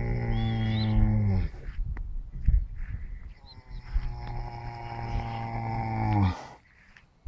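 Cattle mooing: two long, low calls, the second longer, each dropping in pitch as it ends.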